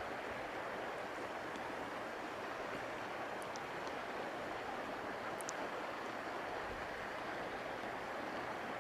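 Steady rush of flowing river water, with a few faint high ticks in the middle.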